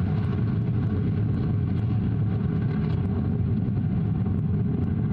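Vega rocket's P80 solid-fuel first-stage motor firing in ascent: a steady deep rumble with a few faint crackles on top.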